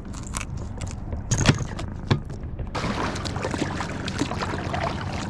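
Handling a freshly landed tuna on a kayak: a few sharp knocks, then dense clattering and rattling of gear from about halfway through, over a steady low rumble.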